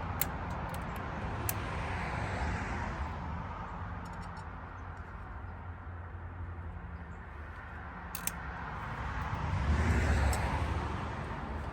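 Steady low background rumble that swells and fades twice, loudest about ten seconds in, with a few light clicks near the start and one about eight seconds in.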